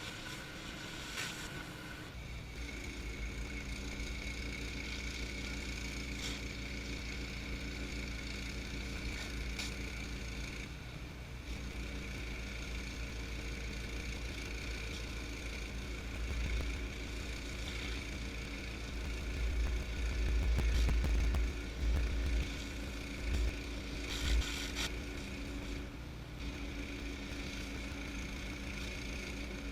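Gas pressure washer with a Honda engine and a direct-drive 4000 PSI pump, running steadily under load, with the hiss of water spraying from a rotating surface cleaner onto concrete. The sound changes about two seconds in, and a louder deep rumble swells a little past the middle alongside a few knocks.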